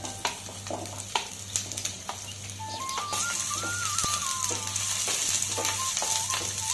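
Onion wedges dropping into hot oil and sizzling, with a wooden spatula knocking and scraping against the nonstick pan as they are pushed in and stirred. The sizzle grows louder about three seconds in.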